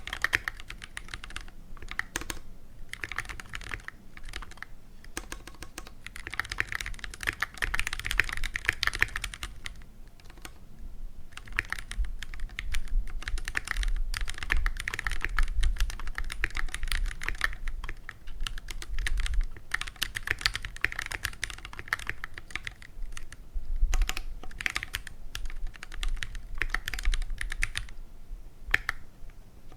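Continuous fast typing on a stock Keychron Q1 mechanical keyboard with Phantom Red switches, a dense run of key clicks broken by a few short pauses.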